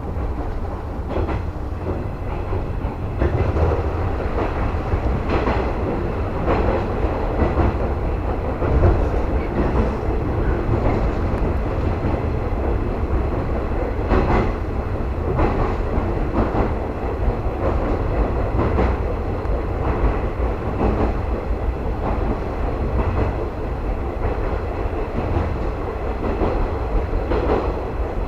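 JR West 115 series electric train running along the track, heard inside the leading car: a steady low rumble of wheels on rail, with scattered clicks as the wheels pass over rail joints.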